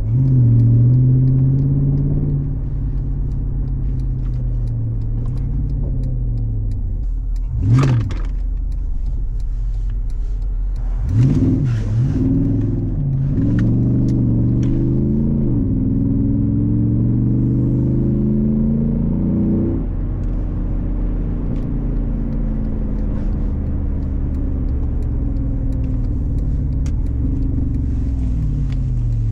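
Jeep SRT8's Hemi V8 driving on the road: its note drops in the first couple of seconds, with a brief loud burst about eight seconds in. From about eleven seconds it pulls up through the gears, the pitch climbing and falling back at each shift, then settles into a steady cruise for the rest.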